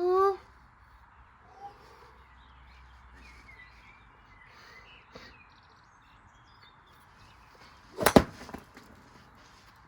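A single loud, sharp impact about eight seconds in, followed by a brief rattle, over faint birdsong; a short rising call sounds right at the start.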